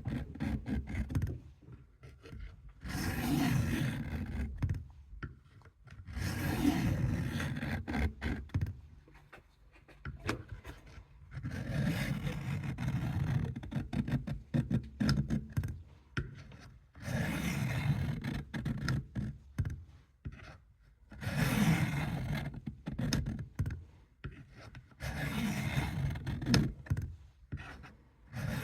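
A steel knife blade being scraped back and forth across a coarse sharpening puck. The strokes come in bouts of a few seconds, with short pauses between them, as the edge is ground.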